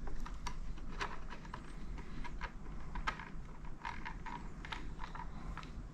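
Irregular small plastic clicks and ticks, a few each second, from working a motorcycle's handlebar switch housing and turn signal button cap by hand.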